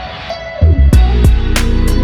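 Background music: an instrumental track with a plucked guitar and a steady beat, quieter for the first half second before the full arrangement comes back in.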